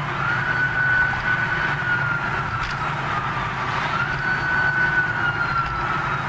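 Police motorcycle siren wailing, its pitch rising and slowly falling in two long cycles, over steady low engine and road noise.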